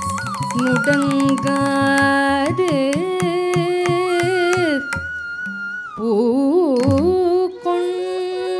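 Carnatic music in raga Naattai, Adi tala: a melody held on long notes and gliding between them, over rapid sharp percussive strokes and low drum strokes. The music breaks off briefly about five seconds in, then the melody comes back.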